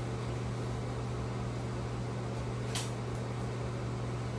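Steady low machine hum with a noisy hiss beneath it, like a fan or ventilation unit running, with one faint click about three seconds in.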